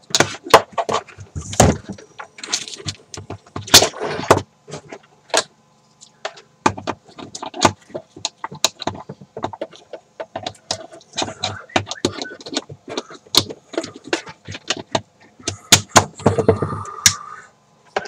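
Handling noises close to the microphone: irregular clicks, knocks and rattles of a small device and other objects being picked up and moved about.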